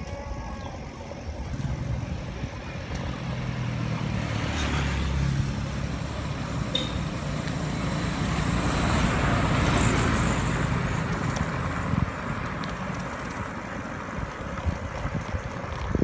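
Road traffic: motor vehicles passing. An engine hum sounds from about two to five seconds in, then a louder pass swells to its loudest about ten seconds in and fades away.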